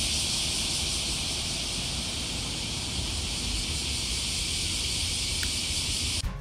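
A steady, shrill chorus of summer cicadas, with low wind rumble on the microphone; both cut off suddenly just before the end.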